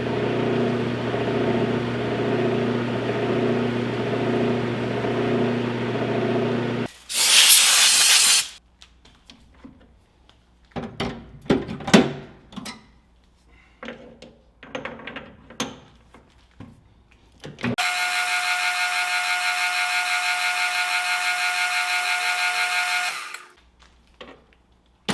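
Metal-shop machinery: a machine, likely the metal lathe, runs steadily for about seven seconds and stops. A loud rushing hiss follows, then tools and metal parts knock and clatter. About three-quarters of the way in, a second, higher-pitched powered tool runs steadily for several seconds and then stops.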